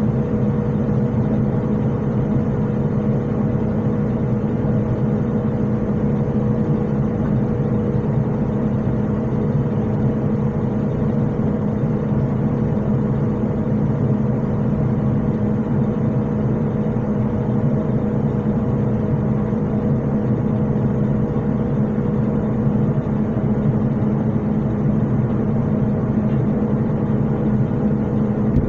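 Combine harvester running steadily: an even, unbroken engine drone with no change in speed.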